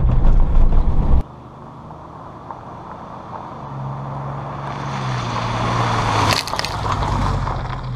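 Car driving, a steady low engine hum slowly growing louder, with a short spell of rattling near the end. A loud low rumble at the start cuts off abruptly about a second in.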